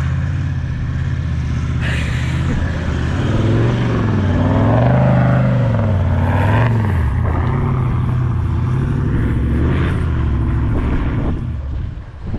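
Dual-cab 4WD ute's engine working hard through soft sand up a dune track. The revs climb and then fall as it drives past, loudest about halfway through.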